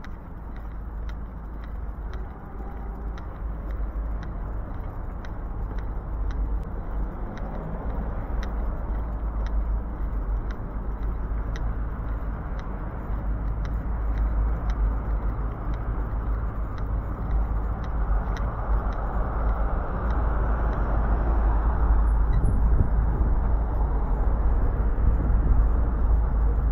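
Passing car traffic on a suburban main road at night, swelling as vehicles go by and loudest in the last third. Footsteps tick lightly and evenly about twice a second throughout.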